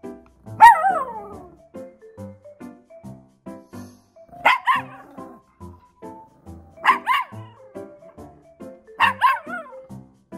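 Maltese dog barking in protest at being asked again and again for its paw, angry by the owner's account: one loud bark falling in pitch near the start, then three pairs of quick barks a couple of seconds apart.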